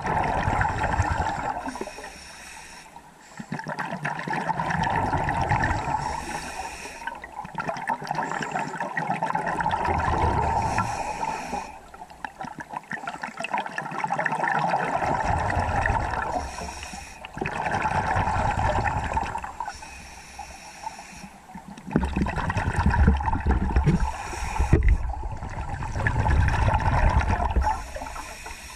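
Scuba diver breathing through a regulator, heard underwater: rushing, gurgling bubble bursts alternating with quieter gaps, about one breath every four to five seconds. The rushes are stronger and deeper in the last several seconds.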